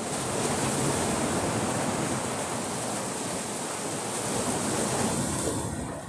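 Sea surf on a rough day: a wave rushing in and washing over the shore, a swelling roar of water that holds for a few seconds and fades away near the end.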